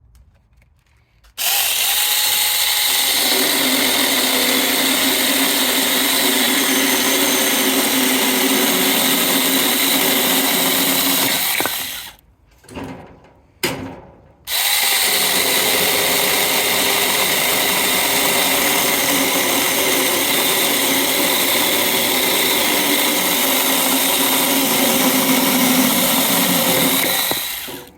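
Mini 21 V battery chainsaw running under load as it cuts through dry softwood just under 10 cm thick, a steady electric motor whine with chain noise. It runs in two long stretches, stopping about 12 seconds in and giving two short bursts before starting again.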